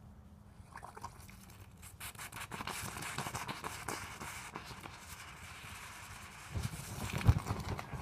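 Molten aluminum pouring into a sand mold over a foam pattern: from about two seconds in, a dense crackling hiss as the hot metal burns out the foam, then several low thuds near the end as the foam gases catch fire on the mold.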